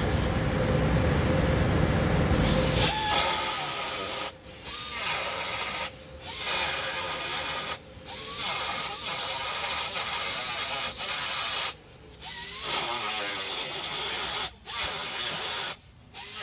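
A small pneumatic angle grinder with an abrasive disc grinding the steel inner door panel of a 1999 Ford F-150, opening the spots that give access to the driver's window motor. It runs in spells of a few seconds with brief stops between them. For the first three seconds there is a low rumble instead.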